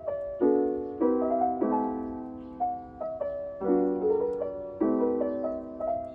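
Background piano music: gentle chords struck about once a second, each fading away.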